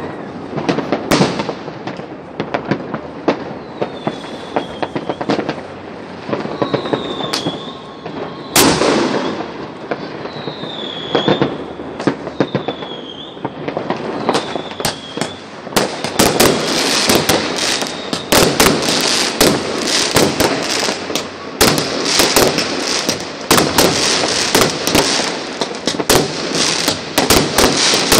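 Fireworks going off: scattered bangs and crackles, with a few short whistles in the first half. About halfway through, the popping and crackling turns dense and almost continuous.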